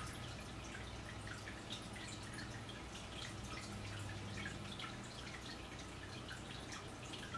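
Quiet room tone: a steady low hum with many faint, scattered soft ticks.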